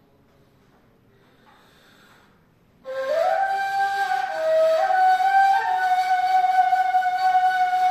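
Ney, the Turkish end-blown reed flute, playing a Hicaz makam taksim: after about three seconds of near silence, a breathy note enters with an upward slide and is held, wavering between two neighbouring pitches.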